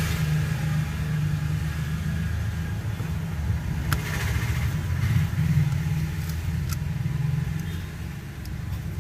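A low, steady engine-like rumble, with a few sharp clicks of a screwdriver working at the plastic casing of a Bluetooth speaker; the sharpest click comes about four seconds in.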